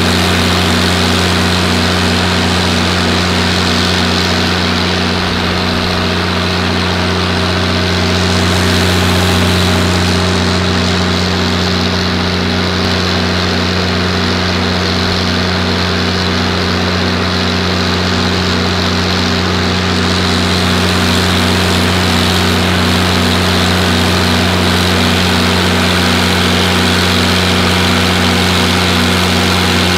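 Six-cylinder diesel irrigation engine running at a steady speed under load, driving a 3300 gpm irrigation pump through a driveshaft; an even, constant engine drone with no change in pitch.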